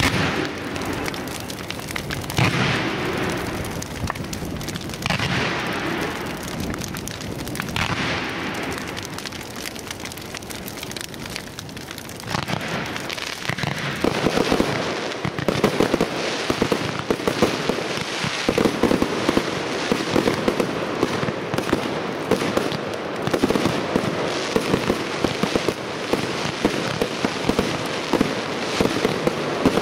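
Professional firework display: aerial shells bursting every few seconds, each followed by crackle, then from about twelve seconds in a dense, continuous run of rapid crackling and popping.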